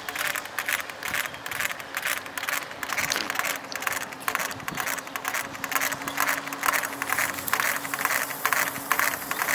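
Bicycle drivetrain making a rapid, uneven clicking and scraping as it turns, a noise the owner suspects comes from the derailleur. A faint steady hum joins about two seconds in.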